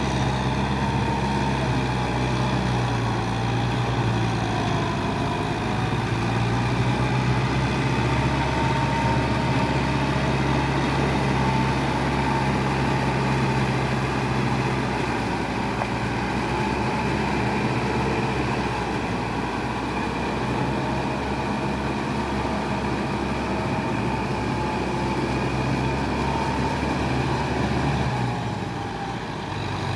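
Kubota tractor's diesel engine running steadily, with a faint wavering whine above the engine note. The engine note drops briefly near the end.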